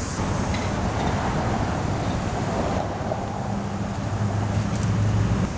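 Outdoor road traffic noise with wind buffeting the microphone; a low engine hum builds in the second half and stops suddenly near the end.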